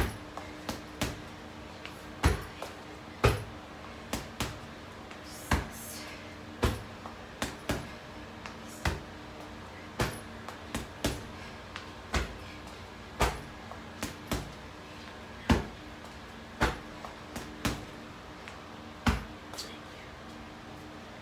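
Gloved punches landing on an Everlast heavy bag: a string of sharp thuds at an irregular pace, often two or three in quick succession, over a steady low hum.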